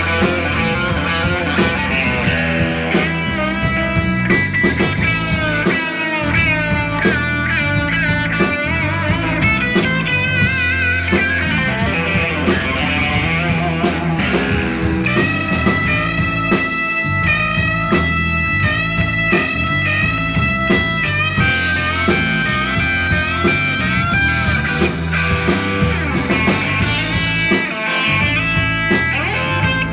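Live rock band playing loudly, led by an electric guitar with bending, wavering lead notes; about halfway through the guitar holds a run of long sustained notes.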